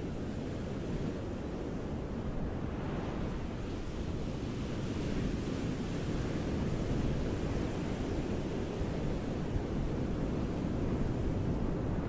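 Ocean surf: waves washing onto a beach, a steady rush of noise that builds gently a few seconds in and stays fuller to the end.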